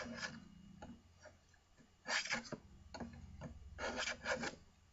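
Sargent block plane taking three short strokes along a wooden board: the blade shaves the wood with a dry scraping hiss, and the freshly adjusted iron is cutting full-width shavings.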